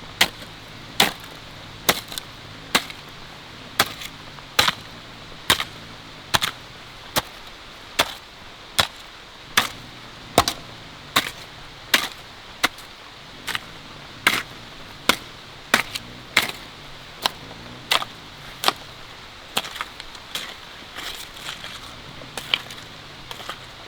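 Steady series of sharp chopping strikes, about one every 0.8 seconds, a little weaker near the end.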